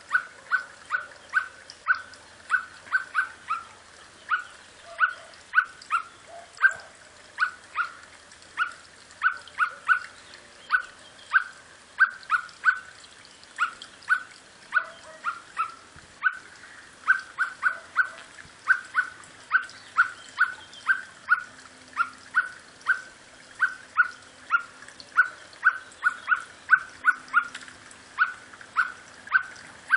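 An animal calling over and over in short, sharp calls, mostly one to three a second and now and then in quick bunches.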